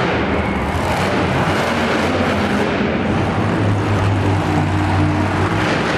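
Monster truck engine running loud at fairly steady revs, its low hum strongest for a couple of seconds past the middle.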